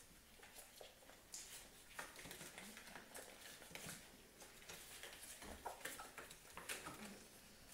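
Newborn puppies nursing at their mother: faint, scattered suckling smacks and clicks.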